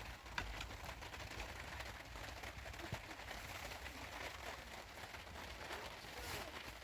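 Faint, steady rain hiss, with a few light clicks.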